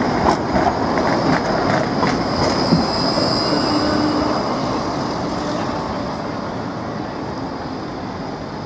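Škoda ForCity low-floor tram passing close by, its wheels rumbling on the rails with sharp clicks over the track joints. A thin, high wheel squeal comes in around the middle, and the sound fades as the tram moves away.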